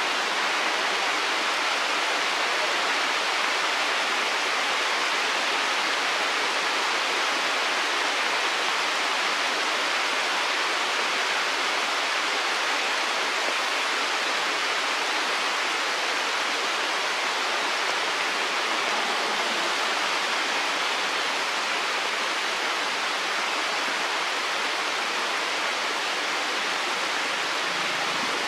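Steady, even rushing hiss with nothing standing out from it.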